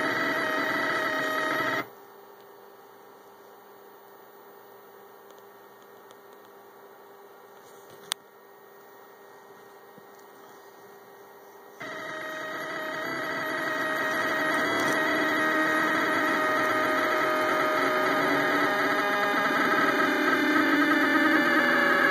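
Rostock Max delta 3D printer's stepper motors whining as they drive the effector, stopping about two seconds in so that only a faint hum and one sharp click remain, then starting again about twelve seconds in, with the whine shifting in pitch near the end.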